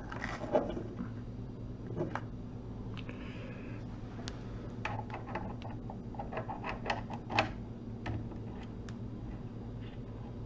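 Scattered clicks and taps of parts being handled and fitted as the pneumatic gripper and suction-cup tool head is mounted on the end of a Dobot Magician robot arm, with a quick run of clicks in the middle, over a steady low hum.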